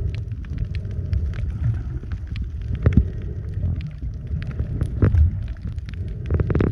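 Underwater sound picked up by a camera submerged on a reef: a steady low rumble of water movement with many scattered sharp clicks and crackles.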